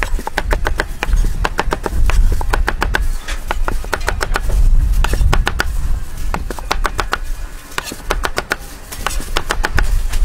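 Knife chopping fruit on a plastic cutting board: quick runs of sharp strokes in bursts, over a steady low rumble.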